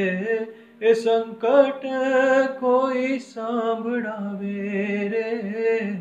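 A man singing a Gujarati folk song in long, wavering held notes, with a short break about a second in.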